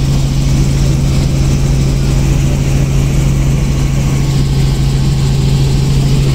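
Light helicopter's engine and rotors running steadily in cruise flight, heard inside the cabin: a loud, even drone with a strong low hum that does not change.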